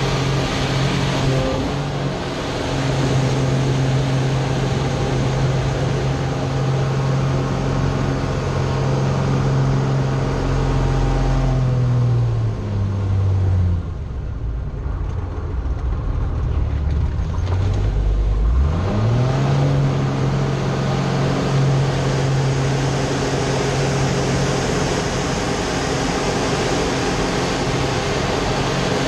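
Slick 540 aerobatic plane's six-cylinder Lycoming engine and propeller running steadily, heard from inside the cockpit during aerobatics. About twelve seconds in the engine note drops, stays low for about five seconds, then climbs sharply back to its earlier pitch.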